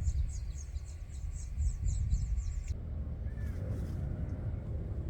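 Wind rumbling on the microphone, with a bird repeating quick high chirps, about three a second, that cut off abruptly about two and a half seconds in.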